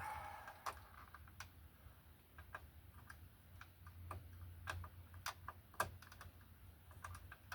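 Faint, irregular light clicks and taps from hands working small plastic electrical plug parts, over a steady low hum.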